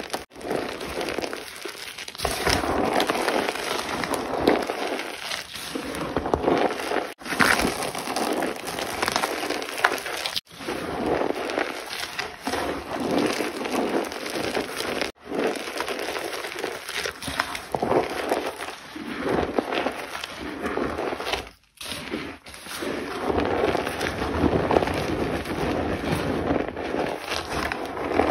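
Blocks of gym chalk being crushed and crumbled, a dense crunching and crackling. It breaks off abruptly four times, where separate clips are spliced together.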